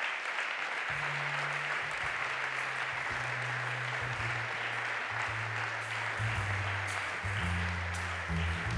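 Audience applauding steadily, with slow music coming in underneath about a second in, its low bass notes growing louder toward the end.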